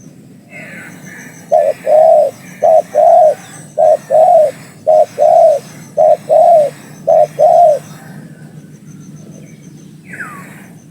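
Spotted dove (tekukur) cooing: about six loud coos, each a short note followed by a longer one, roughly one a second, then it stops.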